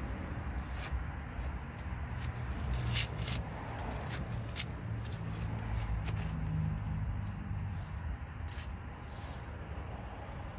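Scattered short scratches and crackles of a vinyl body sticker being scraped and peeled off a truck's panel by gloved hands, a cluster of them about three seconds in, over a steady low background rumble.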